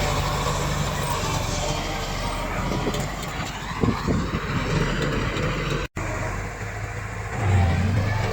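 Komatsu D68 bulldozer's diesel engine running under work, with a few sharp knocks around the middle and the engine note growing louder near the end. The sound cuts out for an instant a little after halfway.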